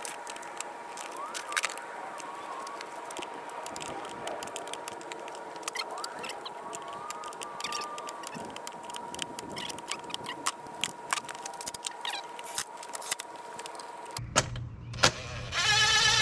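Clicks and light rattles of plastic scooter body panels and screws being handled and fitted. Near the end comes a short burst, then about a second of steady whir from a cordless drill driver running a screw into the floorboard panel; this is the loudest sound.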